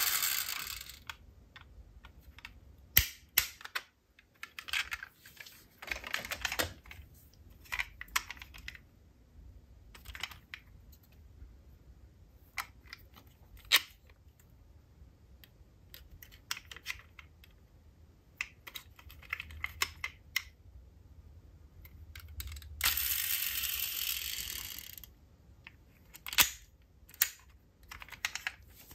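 Die-cast metal toy cars being handled: scattered sharp clicks and clacks and short rattles. A scraping rustle runs for about two seconds later on.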